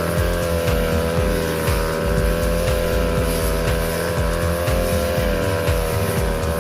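Grass-cutting machine's small engine running steadily, its 45 cm blade cutting grass, with irregular short ticks throughout.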